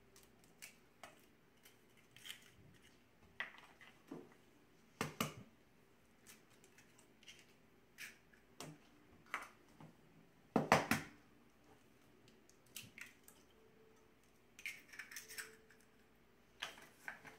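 Eggs being cracked one after another against a stainless steel mixing bowl: a few sharp taps, the loudest about five seconds in and again near eleven seconds, with small clicks and shell crackling between.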